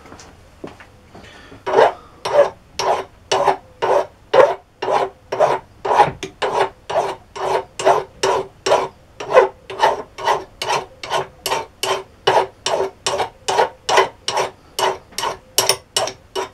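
Hand strokes of a sharpening stone rubbed back and forth over a freshly chamfered metal edge to smooth it, a steady rasping at about two strokes a second, starting about two seconds in.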